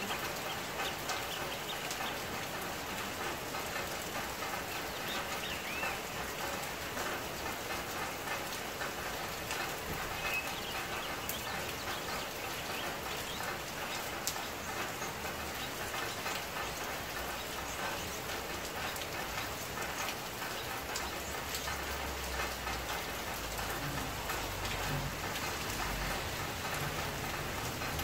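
Steady rain falling: a dense, even hiss full of small drop ticks. From about 21 seconds in, a low rumble joins underneath.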